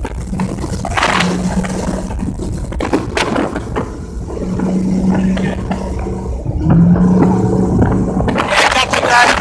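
Rumbling, crackling noise with a low engine hum that comes and goes during a boat ride, with a few sharp knocks. Voices or music come in near the end.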